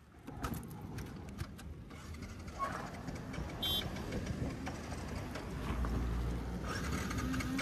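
Cars passing close by on a road, heard from a slow-rolling motorcycle, with a low rumble as one goes past about six seconds in. A short high beep sounds once about three and a half seconds in.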